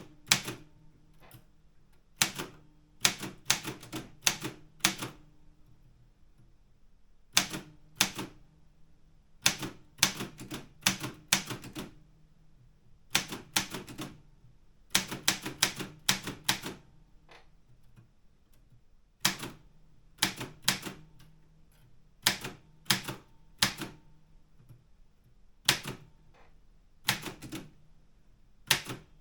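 Keys of an Optima Elite 3 manual typewriter being typed: sharp typebar clacks in irregular bursts of several strokes, with a few pauses of a second or two between them.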